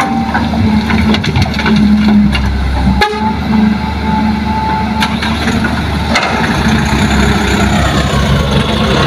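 Diesel engines of a Kobelco hydraulic excavator and a loaded dump truck running steadily, with a few knocks as soil is dumped into the truck bed and a held higher tone for about two seconds in the middle. Near the end the engine pitch rises as the truck pulls away.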